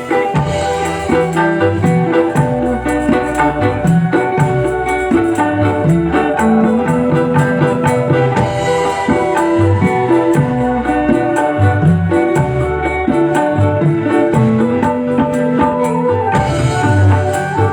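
Instrumental band music, loud and steady: a melody of held notes over a moving bass line and busy percussion, played through a sound system during a sound check.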